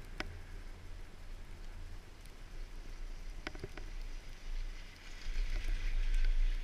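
Wind rumbling on the microphone of a Garaventa-CTEC six-seat detachable chairlift's chair during the ride, growing louder and hissier over the last second and a half. A couple of short clicks, the stronger about three and a half seconds in as the chair passes a lift tower and its sheave train.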